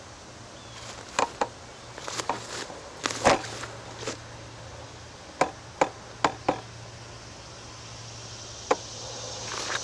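A series of sharp knocks and clicks, about a dozen at irregular intervals and some in quick pairs, the loudest about three seconds in.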